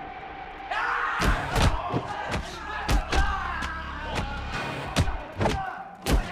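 Movie fight sound effects: a rapid flurry of punch and kick impacts, with the fighters' grunts and shouts, breaking out about a second in after a steady low hum.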